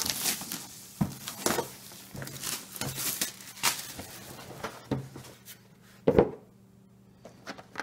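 Plastic shrink wrap crinkling and rustling as it is peeled off a cardboard board-game box, mixed with small clicks and knocks of the box being handled. A single louder knock comes a little after six seconds in.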